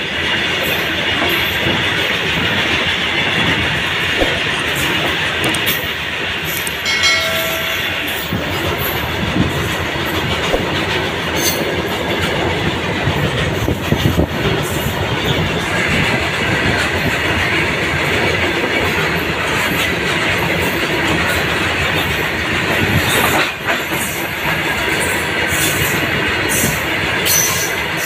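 Loaded freight wagons of a long goods train rolling past close by: a steady rumble and clatter of steel wheels over the rail joints. A brief pitched tone sounds about seven seconds in.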